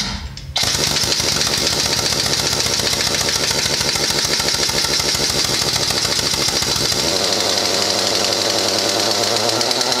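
Central Pneumatic 1-inch drive air impact wrench hammering continuously on a truck lug nut, starting about half a second in, its sound changing about seven seconds in. Fed through a 3/8-inch air hose with a reducer, the 2,000 ft-lb gun is starved of air and really struggles to break the nut loose.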